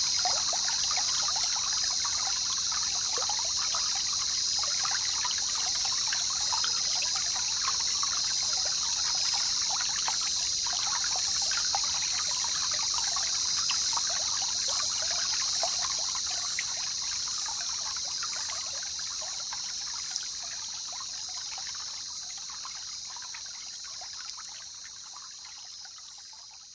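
Water trickling steadily under a constant high-pitched hiss, fading out near the end.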